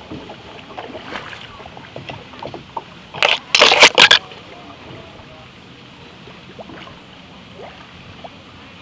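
Paddling in a kayak on a gently flowing river: a steady wash of moving water with small paddle splashes and drips. About three seconds in there is a loud burst of close noise lasting about a second.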